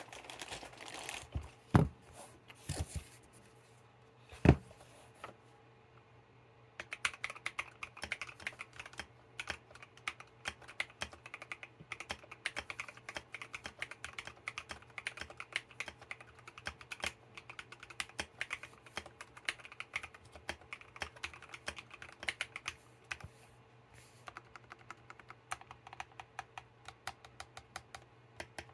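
Mechanical keyboard with Akko Matcha Green switches lubed with Super Lube oil, typed on steadily in a fast run of keystrokes, with a brief pause near the end. In the first few seconds there are a few loud knocks as the board is handled and set at an angle, before the typing starts.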